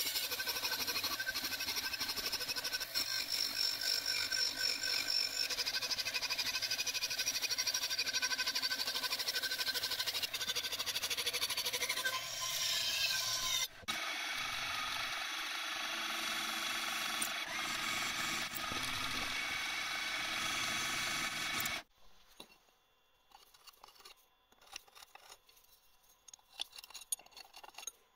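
Milling machine face-milling a cast aluminium bracket, the cutter running with a steady high whine. After an abrupt change at about 14 s the mill drills holes in the casting with a steady machine sound, which stops suddenly near 22 s, leaving only faint clicks as the part is handled.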